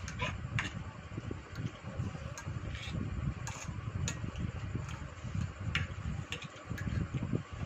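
A fork tapping and scraping on a ceramic plate while noodles are twirled: a few sharp, irregular clicks over a steady low rumble.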